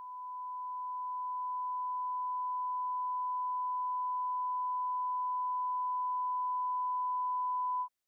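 A steady 1 kHz sine-wave test tone that grows louder, quickly at first and then more and more slowly, as it passes through a compressor set to its softest knee, and cuts off abruptly near the end.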